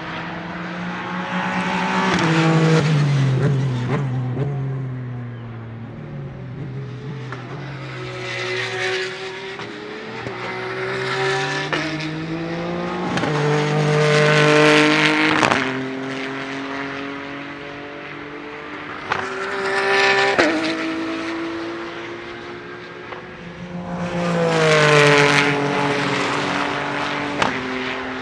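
Ligier JS P4 prototype race car's 3.7-litre naturally aspirated Ford V6 engine at high revs as the car passes by several times. The engine note rises and falls with each pass and drops suddenly at gear changes.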